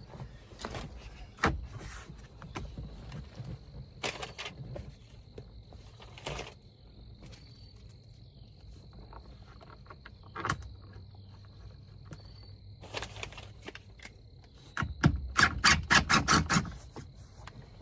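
Scattered clicks and knocks of plastic interior trim being handled and set back in place. Near the end, an impact gun runs in a quick string of about ten short, loud bursts, driving a trim bolt back in. A faint steady high tone sits underneath.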